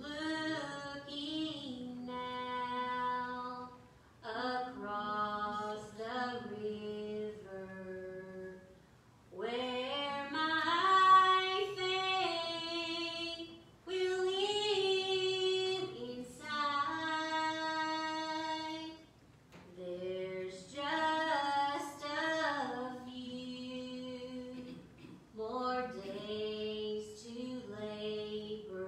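A woman singing a gospel song solo and unaccompanied, in phrases of a few seconds each with short pauses for breath between them.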